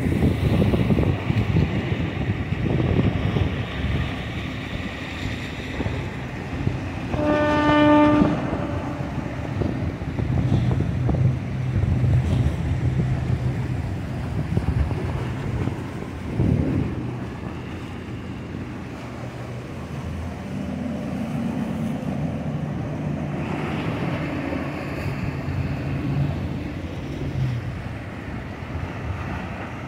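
Boat engines running past over wind and surf, with one loud horn blast from a boat lasting about a second, a quarter of the way in. Later a low, steady engine drone rises and falls as boats pass.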